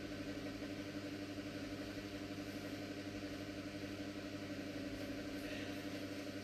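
Room tone: a steady, unchanging electrical hum with a faint hiss.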